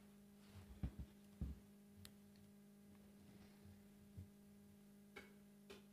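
Near silence of a meeting room: a steady low electrical hum with a few faint, short knocks and taps scattered through it, the two loudest about a second and a second and a half in.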